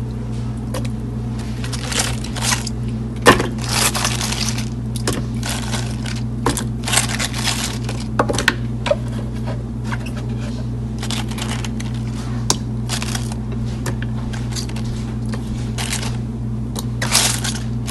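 Wet mustard greens rustling and crinkling as hands move and press them in a plastic basin, in irregular spurts, with a sharp knock about three seconds in. A steady low hum runs underneath.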